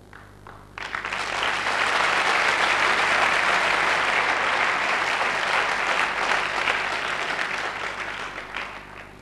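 Audience applauding. It starts about a second in, builds quickly, holds steady, then tapers off near the end.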